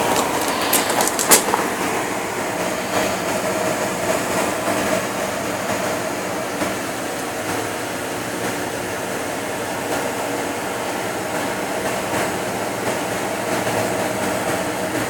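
Homemade waste-motor-oil centrifuge running: its bowl, driven to about 6000 rpm by a 1/3 hp electric motor on a variable frequency drive, gives a steady whir with a steady whine. A few sharp clicks come about a second in.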